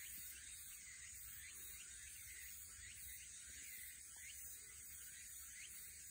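Near silence: faint outdoor ambience, a steady high hiss with soft short chirps repeating about once or twice a second.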